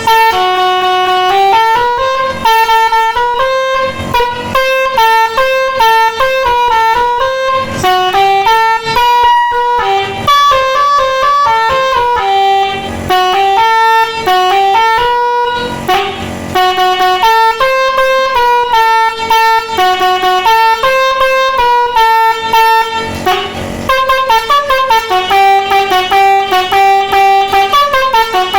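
Telolet horn set played by an electronic tone module, sounding a quick melody of short stepped horn notes with a few brief breaks.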